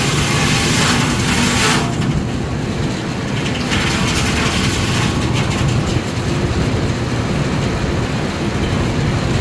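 Steam-engine-driven sawmill machinery running: a loud hiss for the first couple of seconds that cuts off abruptly, then a steady low rumble with light mechanical clatter.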